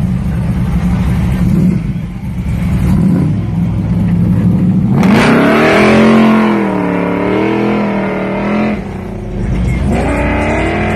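Box Chevy Caprice's engine rumbling low, then about halfway through revving hard, its pitch climbing and swinging up and down for a few seconds. It drops off briefly and climbs again near the end.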